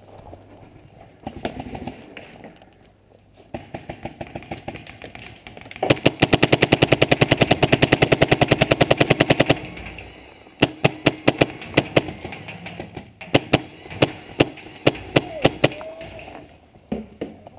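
Electronic paintball marker (Planet Eclipse Etha) firing: a rapid, even string of shots at about a dozen a second for three and a half seconds, then scattered single and paired shots.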